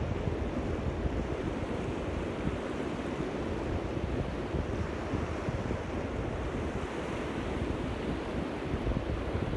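Small sea waves breaking and washing up on a beach, with wind buffeting the microphone in a steady low rumble.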